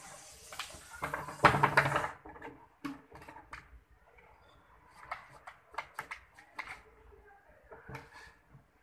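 Light clicks and knocks of a plastic tub and the clear plastic jar inside it as kittens clamber in and scrabble at them, with a louder scraping rattle about a second and a half in.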